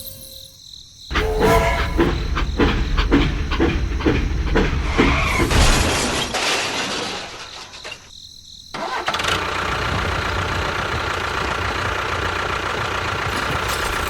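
Engine sound, rough and uneven with knocks at first. It breaks off sharply about eight seconds in, then resumes and runs steadily with an even hum.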